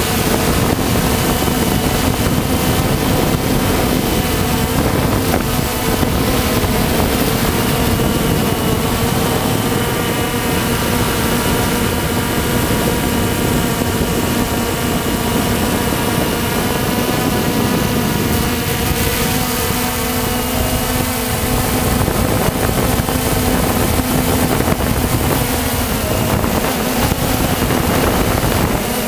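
Walkera Tali H500 hexacopter in flight, heard from its onboard camera: a steady buzz from its motors and propellers, with wind rushing over the microphone.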